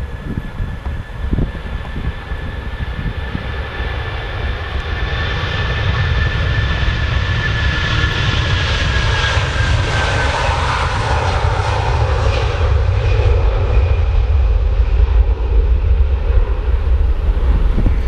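Airliner engines passing close by, growing louder over a deep rumble, with a high whine that drops in pitch about halfway through as the aircraft goes past.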